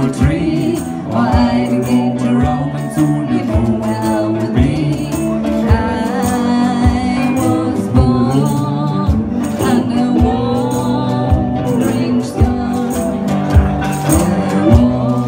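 A live band playing a country-style song on cigar box guitars with a drum kit, with a steady beat and voices singing.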